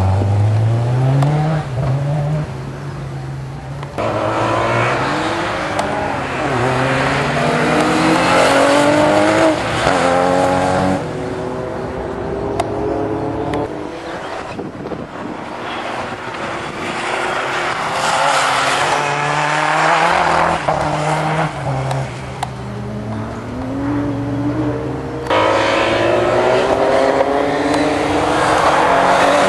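Turbocharged rally car engine accelerating hard through the gears, its note rising and dropping back with each shift, over several runs that cut abruptly from one to the next.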